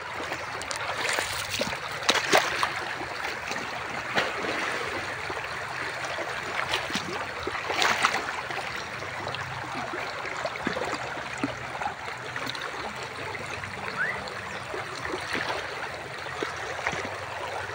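Shallow rocky stream running and trickling steadily, with a few short splashes from a puppy paddling through the water, the loudest about two and eight seconds in.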